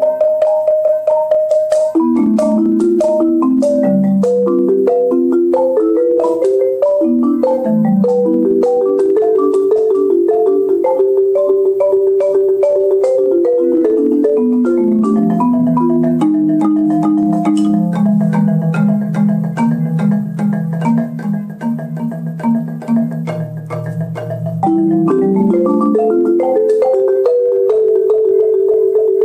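Solo marimba played with mallets: quick runs of struck notes and rolls that work down into the low bass register past the middle, then climb back up to a high, rapidly repeated roll near the end.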